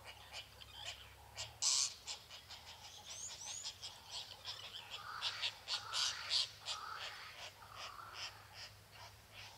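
Tropical jungle ambience: many birds chirping and calling over one another in a dense chorus, with one louder call about two seconds in and a few short rising whistles soon after.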